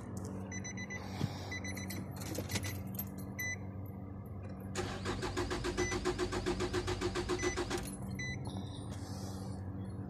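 A 2007 Nissan Altima's engine cranking on the starter for about three seconds, in a steady rhythm, without catching, then stopping: the crank-but-no-start fault. Rapid electronic beeping comes in the first few seconds, before the cranking.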